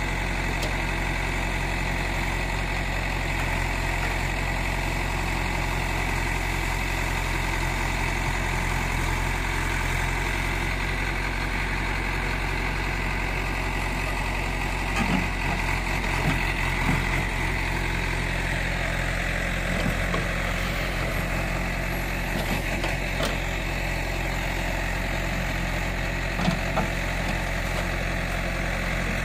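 JCB 3DX backhoe loader's diesel engine running steadily while the backhoe digs, with a few short knocks in the second half.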